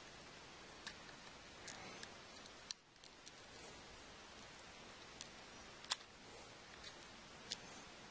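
Faint scattered sharp clicks over a steady hiss, the loudest a little before the end: a razor blade prying cracked screen glass off a Samsung Galaxy S3, the glass ticking as it is worked loose from the adhesive.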